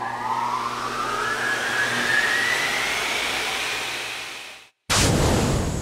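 Animated title sound effects: a rushing whoosh with a tone rising steadily in pitch that cuts off suddenly after about four and a half seconds. After a brief silence comes a sudden loud hissing rush that fades away.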